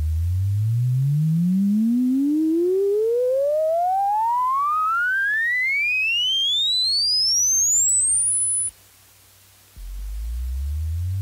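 Sine-wave test tone sweeping steadily upward from the lowest bass, about 20 Hz, to about 10 kHz over roughly eight and a half seconds, then cutting off; after about a second's gap a new sweep starts again from the bottom. It is a Dolby screen-loudspeaker sweep test signal, meant to expose sudden level changes or buzzing, clicking or tearing at certain frequencies from a faulty loudspeaker or amplifier.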